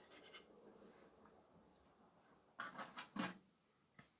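Plastic pager case and circuit board handled with a screwdriver: a few short sharp clicks and scrapes a little past halfway, then a single light tick near the end, against near silence.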